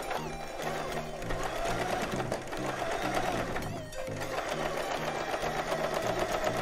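Singer Tradition 2259 sewing machine stitching through fabric: a steady motor hum with rapid needle strokes, pausing briefly about four seconds in before it runs on.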